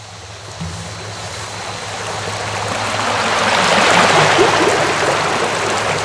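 A rushing noise like running water, swelling steadily and loudest about four seconds in.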